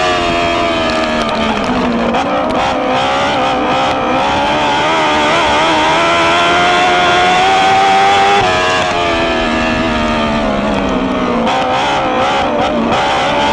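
Onboard sound of a racing dwarf car's motorcycle-derived engine at high revs, the pitch climbing steadily, then falling away as the throttle is lifted about eight and a half seconds in, and rising again near the end as the driver gets back on the power.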